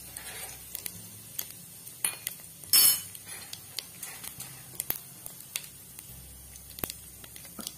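Cumin seeds crackling in hot oil in a pan: scattered sharp pops, with one louder crack about three seconds in.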